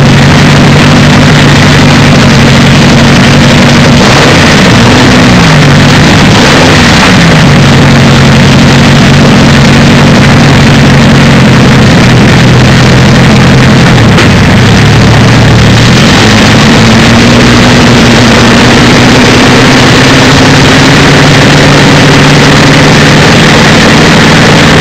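The Napier-Bentley's 24-litre Napier Lion W12 aero engine idling loudly through its short stub exhausts. The revs rise and fall briefly a couple of times about five and seven seconds in, and sag and then pick up again around fifteen seconds in.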